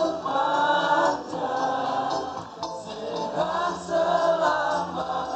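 A group of voices singing a devotional song together in long, held phrases.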